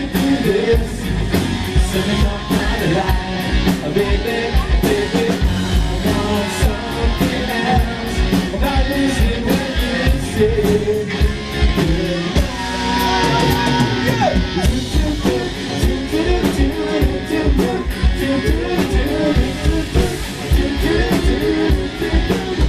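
Live rock band playing: a drum kit beating steadily under electric guitar and a male singer.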